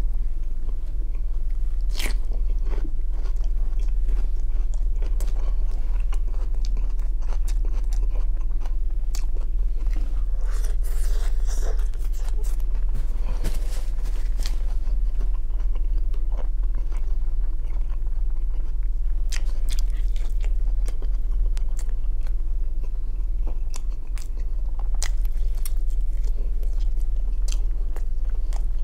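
Close-up chewing and biting of grilled shashlik, with short wet mouth clicks and smacks. A paper napkin rustles about ten to fourteen seconds in, and a steady low hum runs underneath.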